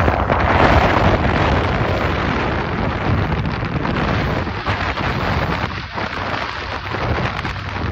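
Wind buffeting the microphone on a moving inflatable boat, over rushing water and a steady low hum from the boat's engine.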